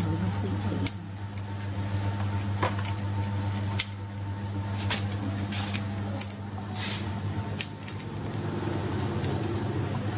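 A steady low mechanical hum, like a small motor or fan, with scattered sharp clicks and crackles over it.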